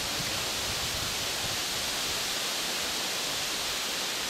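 Steady, even hiss with no distinct events standing out.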